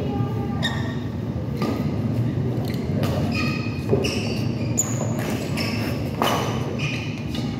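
Badminton rally: rackets striking the shuttlecock in sharp hits about once a second, with short high squeaks of shoes on the court floor, in a large echoing hall over a steady low hum.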